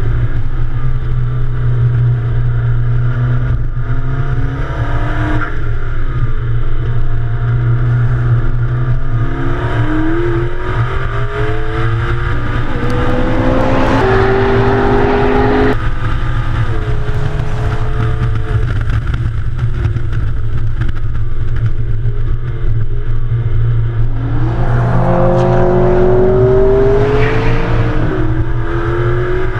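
Sports car engine driven hard on a race track, its pitch climbing under acceleration and falling again several times, with a sudden drop about halfway through, over a steady low rumble.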